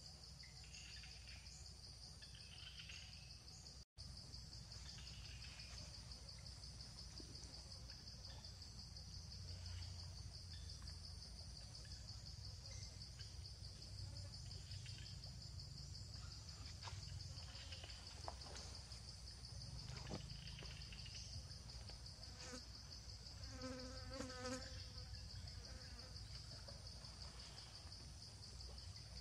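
Faint, steady high-pitched drone of insects, with a few soft clicks and a short pitched animal call in the last third.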